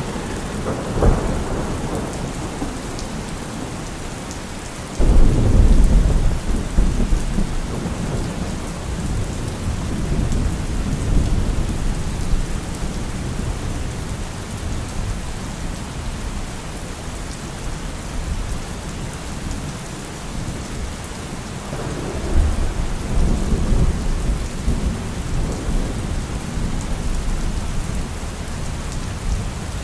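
Steady rain falling, with thunder: a short clap about a second in, a sudden loud clap about five seconds in that rolls on for several seconds, and another long rumble a little past twenty seconds.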